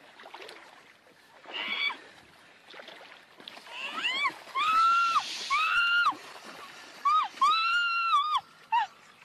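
A monkey giving a series of high, arched calls, each about half a second long, several in a row through the second half.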